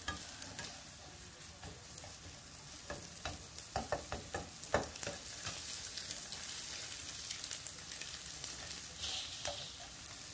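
Scrambled eggs sizzling in a copper nonstick frying pan with a ceramic interior, while a spatula stirs and scrapes them, with irregular taps against the pan.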